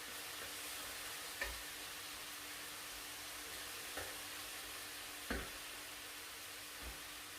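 Chicken breast sizzling as it cooks on the grill, a steady hiss, with four light knocks spread through it.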